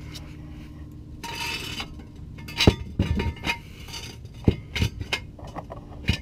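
Steel jack stands being set under the car and adjusted: a brief hiss about a second in, then several sharp metal clinks and clanks spread over the second half.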